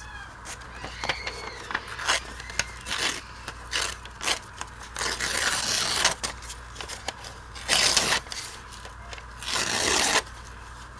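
An old book page being crumpled and torn by hand to distress it, heard as bursts of dry paper crinkling and ripping. The longest bursts come around the middle and near the end.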